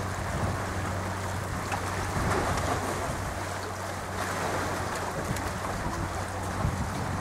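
Wind buffeting the microphone and the sea washing at a rocky shoreline, over a steady low hum.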